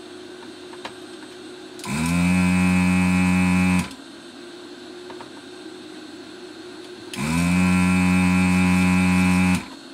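Desoldering station's vacuum pump buzzing in two runs of about two seconds each, switched on and off with the gun's trigger to suck molten solder out of the board's through-holes. A faint steady hum sits underneath.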